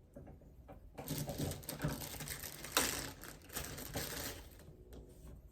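Close-miked chewing of food: an irregular run of crunchy clicks and crackles that starts about a second in, is loudest about halfway through, and dies away near the end.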